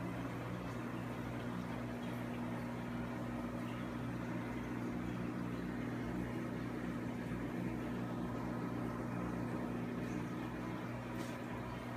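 Steady low electrical hum of aquarium equipment, with a soft hiss of air bubbles rising through the tank water.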